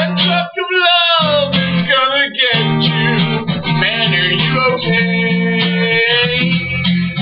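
A song with strummed acoustic guitar under a melody line that bends up and down in pitch, playing on without a break.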